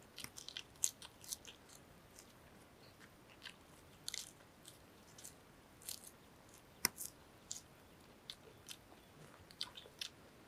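Close, faint chewing and crunching of crisp lettuce and roasted egg, with scattered small crackles and clicks. About seven seconds in there is one sharp crack, heard as an eggshell is being peeled.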